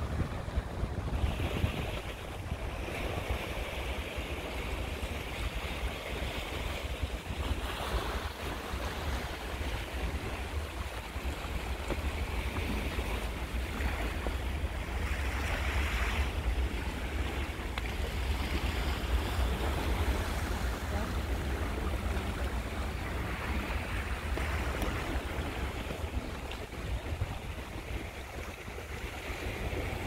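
Sea waves washing against a rocky shore, swelling and easing irregularly, over a steady low rumble of wind on the microphone.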